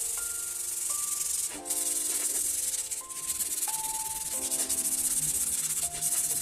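Background music of sustained chords that change every second or two, over a steady high-pitched rubbing hiss.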